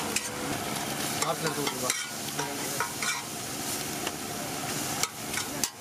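Metal spatula scraping and clacking on a large iron tawa as fish egg bhurji is stirred and chopped. Under it is a steady sizzle of frying, with sharp scrapes and taps coming irregularly.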